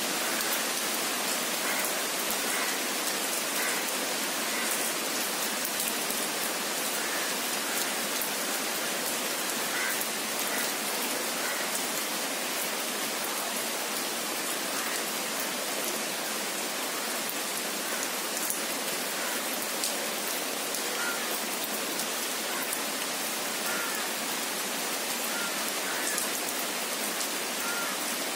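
Steady rain falling on tree foliage, an even, unbroken hiss, with a few faint short chirps scattered over it.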